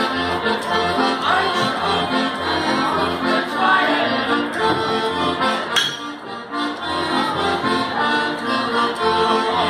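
Accordion-led traditional Bavarian dance music with a steady oom-pah bass beat, and a single sharp knock about halfway through.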